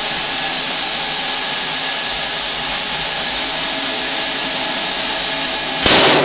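Vacuum cleaner and booster blower running steadily, pulling the air out of a sealed aluminum tank. Near the end a balloon inside the tank bursts with a short loud bang, having swelled in the low pressure.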